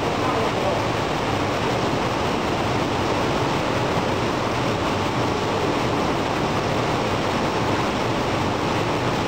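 A rotary cement bag packer running, with the steady rushing noise and rumble of the packing machinery.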